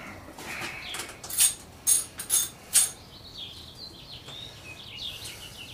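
Four sharp clicks or clacks over about a second and a half, then small birds chirping in quick short notes.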